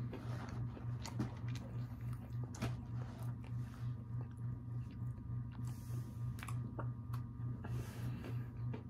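Close-up mouth sounds of a person chewing and biting a crunchy Mexican pan dulce cookie, with scattered sharp crunches, over a steady low hum.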